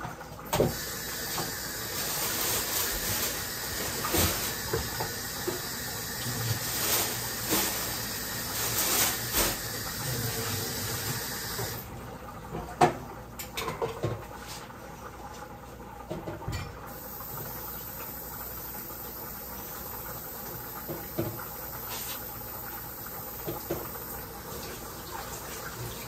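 Kitchen tap running water into the sink, shut off about twelve seconds in, followed by scattered knocks and clinks.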